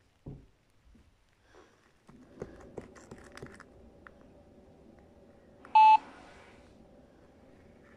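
An electronic monitor gives one short, sharp beep about six seconds in, over a faint steady hum, with a few light clicks a couple of seconds earlier.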